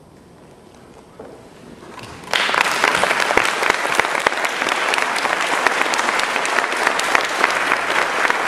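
Audience applauding: after a quiet pause and a few scattered first claps, the applause breaks out all at once a little over two seconds in and carries on as dense, steady clapping.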